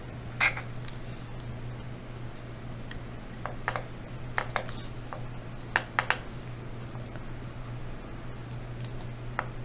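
Scattered light clicks and taps from a craft knife trimming polymer clay veneer on patty paper over a ceramic tile, with hands pressing the clay, over a steady low hum.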